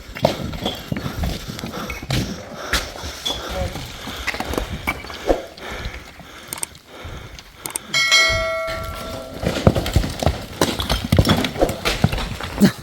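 A run of irregular knocks and thumps, with a steady pitched tone held for over a second about eight seconds in.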